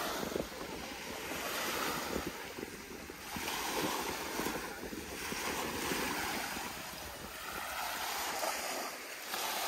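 Small waves breaking and washing up onto a sandy beach, the surf swelling and easing every couple of seconds.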